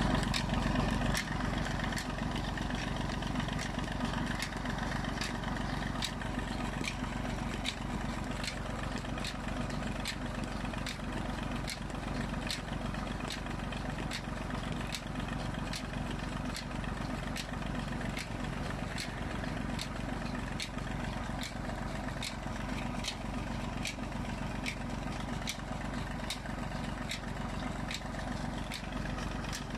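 Tractor diesel engine running steadily at a fixed speed, driving a tubewell pump through a shaft, with a sharp regular click about three times a second. Water gushes from the delivery pipe into the brick tank.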